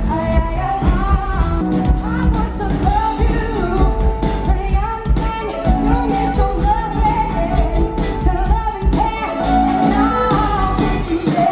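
Pop song with a lead vocal over a steady beat.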